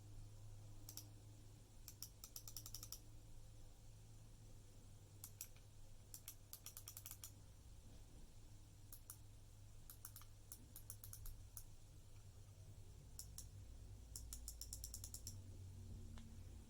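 GameSir GM300 gaming mouse being clicked, faintly: single clicks and quick runs of several clicks in a row, in groups a second or two apart. A low steady hum runs underneath.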